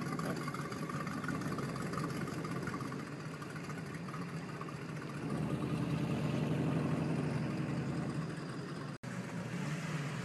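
A vehicle engine running in traffic, a steady hum that grows louder about five seconds in. The sound cuts out for an instant near the end.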